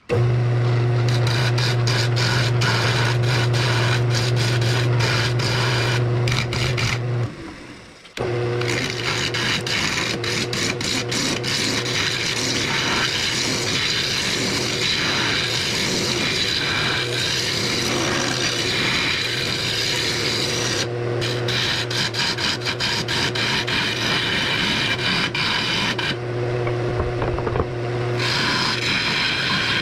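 Wood lathe running with a steady motor hum while a turning tool scrapes and cuts a spinning square 4x4 post, rounding it down. The sound drops away briefly about seven seconds in, then resumes.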